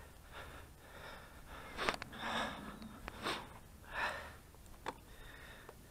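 A cyclist breathing hard while pedalling, with several loud puffing breaths about a second apart, and a couple of short clicks.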